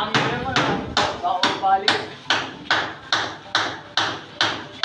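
Steady hammering, about two and a half sharp blows a second, each dying away quickly. Voices talk over the first two seconds.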